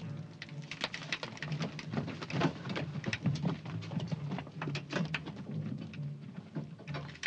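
Earth and stones falling inside a timber-propped mine tunnel as it starts to cave in: a dense patter of many sharp knocks and cracks over a low rumble, with men running out.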